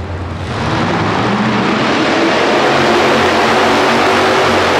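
Farmall economy hot rod pulling tractor's engine coming up to full throttle in the first second, then running loud and steady as it starts its pull against the sled.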